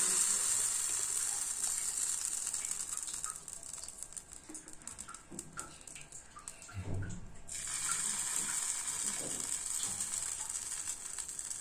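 Dosa batter sizzling as it is spooned onto a hot tawa: a hiss that starts with the pour and fades over a few seconds, then starts again with a second spoonful about seven and a half seconds in, just after a soft knock.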